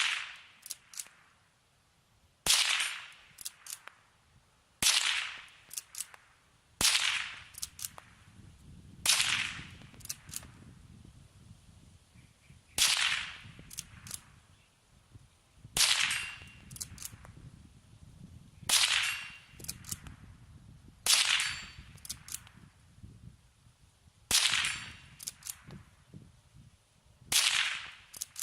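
Henry lever-action .22 LR rifle firing about ten shots, one every two to three seconds, each crack trailing off in a short echo, with light clicks from the lever being cycled between shots.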